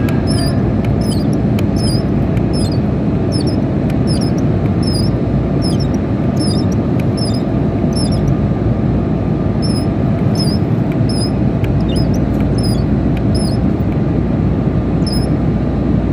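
Hydraulic pump running steadily and loudly, building pressure in a bolt tensioner. A short, high-pitched chirp repeats about twice a second over it.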